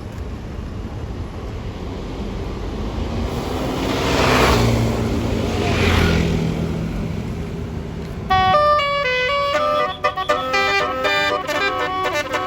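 Road traffic passing, with two vehicles going by about four and six seconds in. Then, about eight seconds in, a bus's basuri-style multi-tone telolet horn starts playing a stepping melody of several notes.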